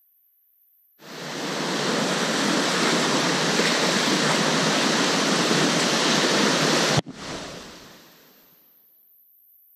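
Loud, steady rush of whitewater starting abruptly about a second in. It cuts off with a sharp click about seven seconds in and then fades away.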